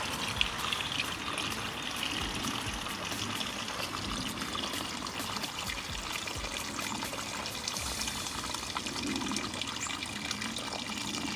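Woodland stream running, a steady trickle of moving water with fine splashing.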